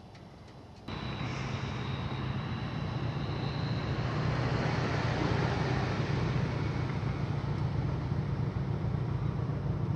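A motor vehicle running steadily. The sound cuts in abruptly about a second in and stays steady, with a strong low hum.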